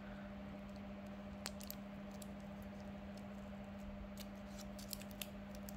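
Aluminium foil crinkling in scattered faint clicks as it is folded and pressed by hand around a cable connector, over a steady low hum.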